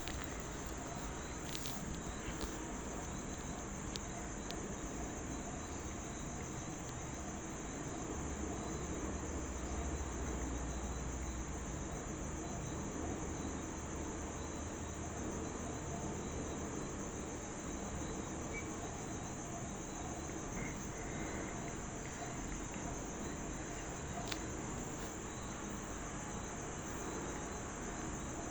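A grasshopper-type insect in grass stridulating: one steady, unbroken high-pitched buzz that does not change over the whole stretch.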